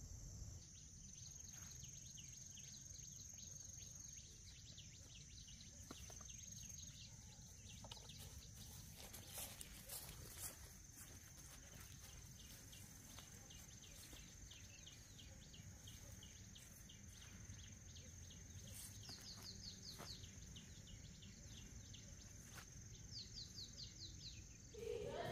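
Faint crickets and other insects: a steady high-pitched drone with fast, even chirping over it, and two short quick runs of chirps near the end.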